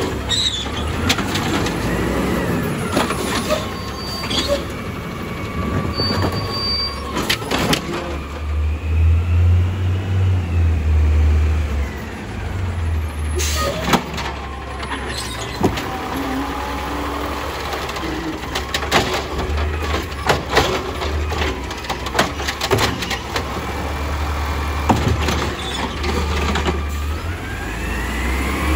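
CNG Autocar ACX automated side-loader garbage truck running at the curb while its hydraulic arm grabs, lifts and dumps wheeled carts: a low engine rumble that swells as the engine revs to drive the hydraulics, with sharp clanks of cart and arm against the hopper, and a rising whine near the end.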